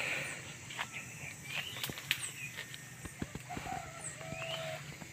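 Forest birds calling with short rising chirps, with scattered sharp clicks and rustles from movement through dry undergrowth. A steady whistled note is held for about a second past the middle.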